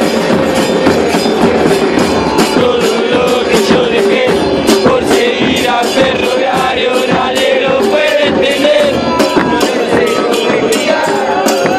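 A football supporters' group chanting together over a steady beat of big bass drums (bombos).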